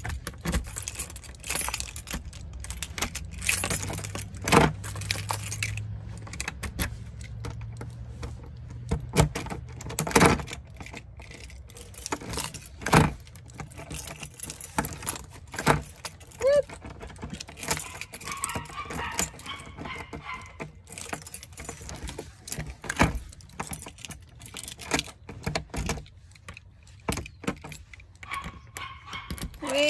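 A bunch of keys jangling and clinking against a brass lever handle and deadbolt while someone works at unlocking a front door, with many irregular sharp clicks and knocks.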